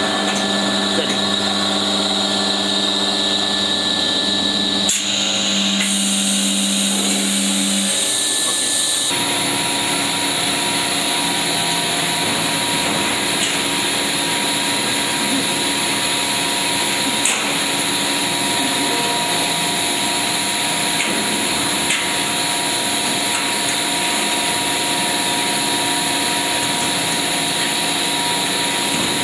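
Extrusion blow molding machine running: a steady mechanical hum and hiss with several constant tones. About nine seconds in, it changes to a denser, broader noise with one steady higher tone.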